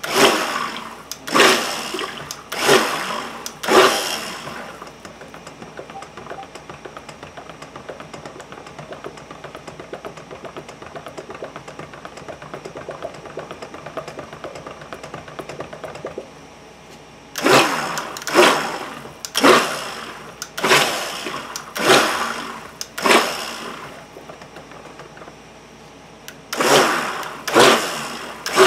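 Large stick blender pulsed in short bursts about once a second in soap batter, mixing oils and lye solution toward trace. A quieter, steady stretch of churning comes between the runs of bursts.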